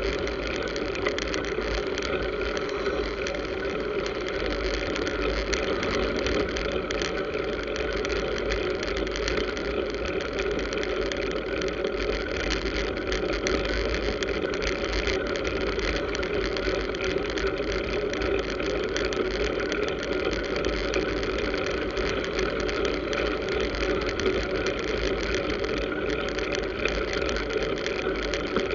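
Steady road-traffic noise from cars and motorbikes on a busy road, with wind rumbling on the microphone of a camera mounted on a moving bicycle.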